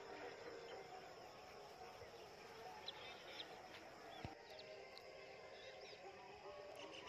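Faint open-air ambience with scattered short, distant bird chirps and calls over a low steady background.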